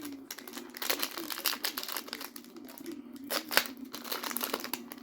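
Plastic booster-pack wrapper crinkling in the hands as it is opened, in many short, irregular crackles.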